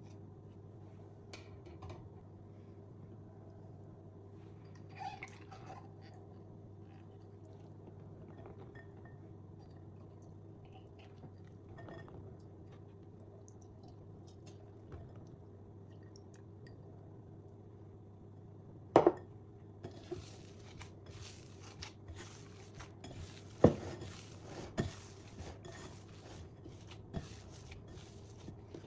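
Hands working soft yeast dough in a glass bowl over a steady low hum: faint scraping and scattering sounds at first, then two sharp knocks against the glass about two-thirds of the way through and a busy stretch of kneading noise to the end.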